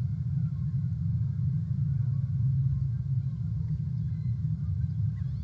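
Steady low rumble of outdoor ambience, with faint bird calls in the background.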